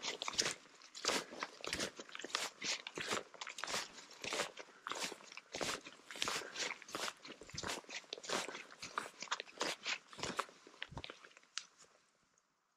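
A hiker's footsteps on a wet, muddy dirt trail through grass at a steady walking pace of about two steps a second, stopping near the end.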